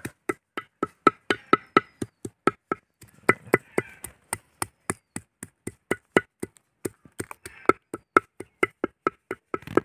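Large knife chopping garlic cloves, chillies and ginger on a wooden stump block: steady, rhythmic knocks of the blade on the wood, about four a second.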